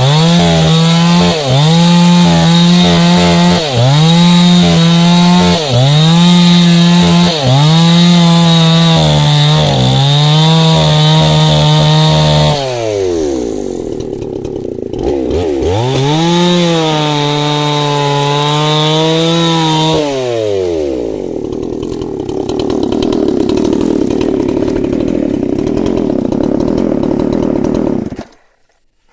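Two-stroke chainsaw held at high revs, with a short dip in throttle about every two seconds. About twelve seconds in it falls to idle, revs up once more, idles again and then stops near the end. The saw's chain oiler is not delivering bar oil.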